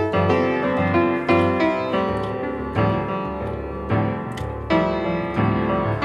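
Background piano music: a slow melody of notes and chords struck one after another, each ringing and fading.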